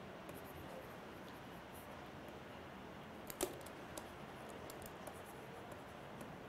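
Faint clicks and light scratching of a pen writing, over low room hiss, with one louder click about halfway through.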